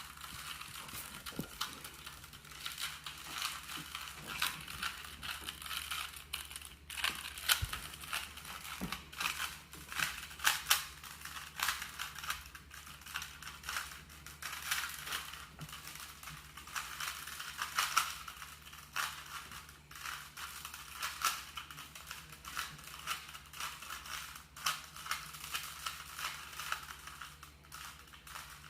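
Plastic Rubik's-type cuboid puzzle being turned by hand, its layers clicking and clattering in quick, irregular runs of twists as it is solved.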